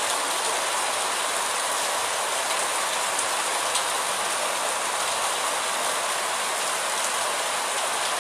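Steady rain falling, with rainwater running down the street gutter over paving stones.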